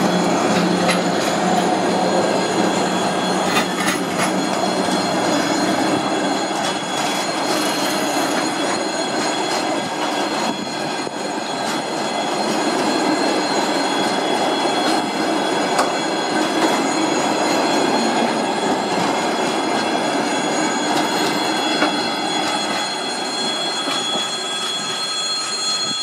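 Works train of track machines and hopper wagons rolling past at close range: steady wheel-on-rail noise with clicks over the rail joints and a thin, steady high squeal from the wheels, getting a little quieter near the end as the train moves away.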